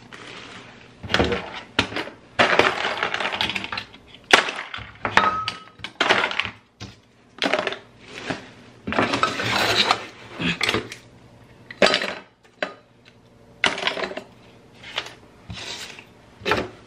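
Toiletry bottles, an aerosol can and a plastic bin being handled and pulled out of a bathroom under-sink cabinet: irregular clattering and knocking of containers against the cabinet floor and each other, in a dozen or so separate bursts with short pauses between.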